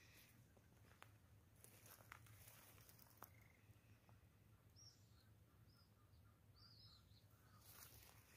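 Near silence outdoors, with a few faint distant bird chirps in the middle and soft scuffs of footsteps on dry ground near the start and end.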